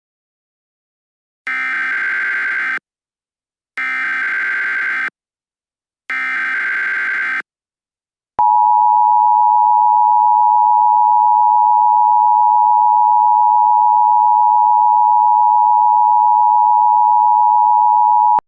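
Emergency Alert System activation on NOAA Weather Radio: three short buzzing bursts of SAME digital header data, evenly spaced, then a loud, steady single warning tone of about 1 kHz (the 1050 Hz weather-radio alert tone) held for about ten seconds before cutting off abruptly. It signals that an emergency message is about to be read.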